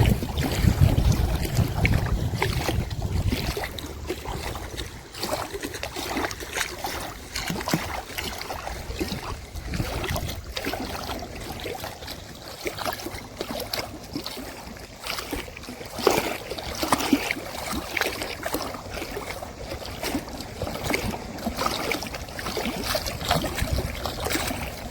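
Rushing floodwater at a spillway with wind buffeting the microphone, a steady noisy rush broken by irregular gusts that are heaviest in the first few seconds.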